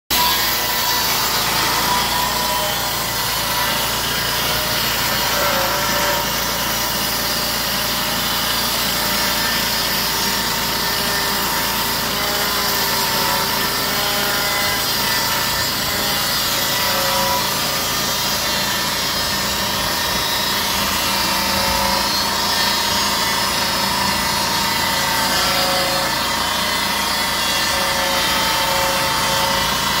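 Lucas Mill swing-blade portable sawmill cutting along a log: its petrol engine runs at a steady speed while the circular blade saws through the wood, a loud, unbroken sound with a faint steady whine in it.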